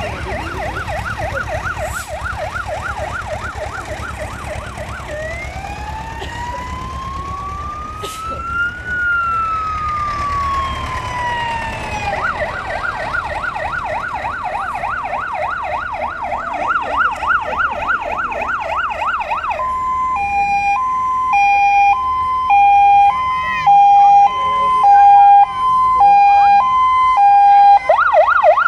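Fire-brigade vehicle sirens sounding continuously and switching patterns: a fast yelp, then a single slow wail that rises and falls over several seconds, fast yelp again, then a two-tone hi-lo about twice a second from about two-thirds of the way in, and back to the fast yelp near the end. A low rumble of passing tractor engines lies underneath in the first part.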